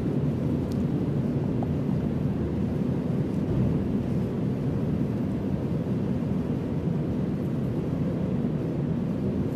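Steady low rumbling background noise with no speech, level throughout.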